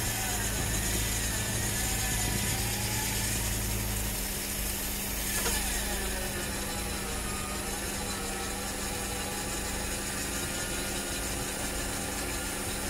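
Winch running under load, its motor whine wavering and then falling in pitch about five seconds in, with a vehicle engine idling steadily underneath.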